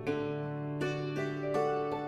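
Gentle background music for children: plucked keyboard notes about two a second over a held bass note.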